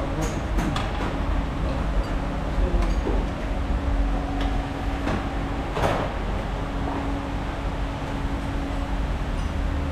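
Workshop noise around a car's front suspension: a steady low hum with a few short metal knocks and clanks of tools and parts, the loudest about six seconds in.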